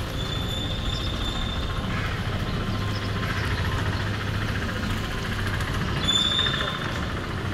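A vehicle engine running nearby, a steady low rumble over street noise that grows stronger from about three seconds in, with a short high whistle near the start and another about six seconds in.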